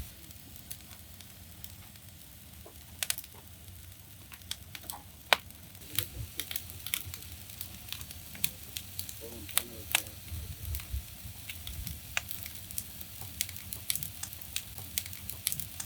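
Wood fire burning, with irregular sharp crackles and pops over a low steady rumble.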